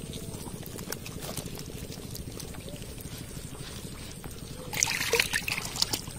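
Water trickling and dripping, with small wet clicks throughout and a louder burst of splashing and rustling about five seconds in.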